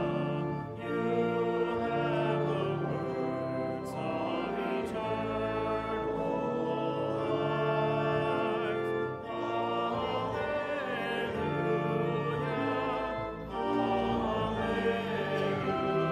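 Congregation singing the sung gospel acclamation with instrumental accompaniment, in long held notes with short breaks between phrases.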